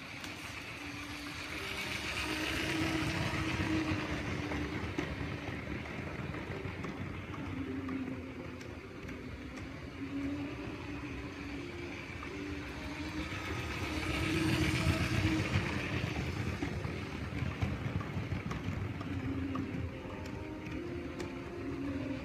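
Lego train running on its plastic track, a steady motor hum that swells twice as the train comes close, about three seconds in and again about fifteen seconds in.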